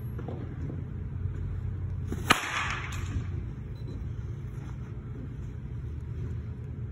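A baseball bat strikes a soft-tossed ball once, a sharp crack about two seconds in, followed by a brief noisy trail, over a steady low hum.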